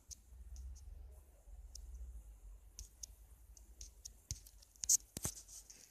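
A utensil clicking against a glass while cocoa is stirred into a small portion of cake batter: irregular sharp clicks, the loudest about five seconds in.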